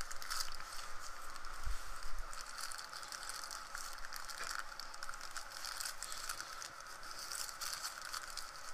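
Small metal hand tools being handled and pushed into the loops of a fabric tool roll: quiet scattered clicks, light rattles and rustling.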